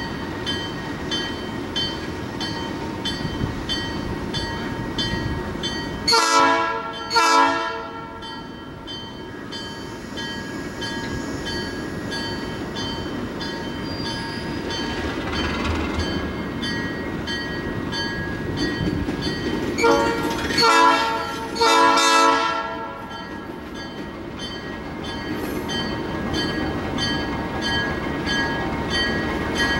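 Diesel locomotive's Nathan P3 air horn sounding two short blasts about six seconds in, the signal that the train is releasing brakes and proceeding. It sounds three more blasts a little over halfway through. Between the blasts the locomotive's engine runs steadily.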